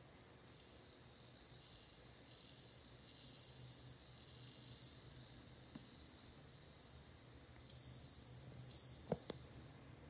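Japanese bell cricket (suzumushi) singing: one long, steady, high-pitched trill that swells and eases in loudness. It starts about half a second in and stops shortly before the end.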